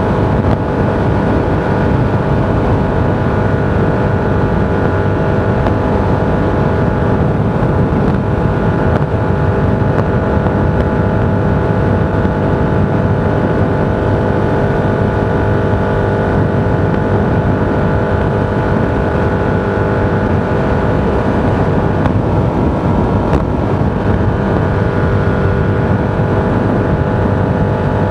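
A vehicle travelling at a steady speed: a constant drone of road and running noise with a steady hum that does not change in pitch.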